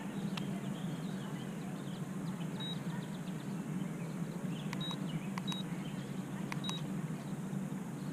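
Handheld digital fish scale beeping four times as its buttons are pressed, each a short high beep with a click, over a steady low hum.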